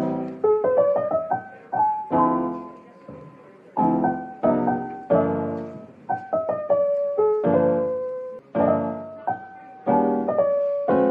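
Background piano music: chords struck every second or so and left to fade, with a melody of single notes between them.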